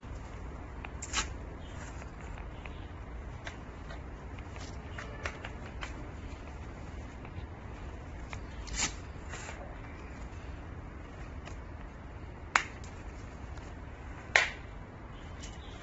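Scattered sharp clicks and light rustling, as of something being handled, over a steady low hum. The loudest clicks come about a second in and near the end.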